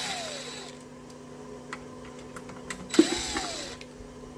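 Cordless drill-driver running in two short bursts about three seconds apart, each spinning up and winding down as it backs out the screws holding the battery plate on the e-bike frame.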